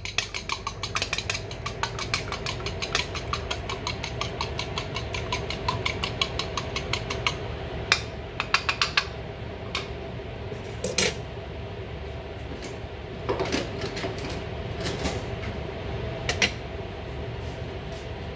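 Eggs being beaten in a bowl, a fast, even clicking of several strokes a second for about seven seconds, then a few scattered knocks and clatters of kitchenware. A steady low hum runs underneath.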